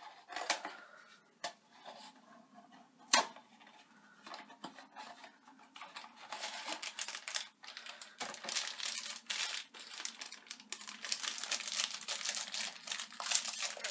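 Small cardboard figure box and its plastic packaging being opened by hand: a few sharp clicks and taps in the first seconds, with a louder snap about three seconds in, then continuous crinkling and rustling of plastic from about six seconds on.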